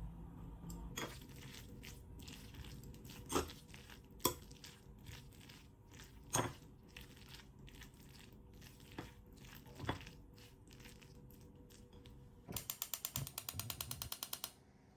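Kitchen handling sounds while seasoning food: scattered light clicks and a few sharp knocks, then a quick, even run of about ten clicks a second, ratchet-like, lasting about two seconds near the end.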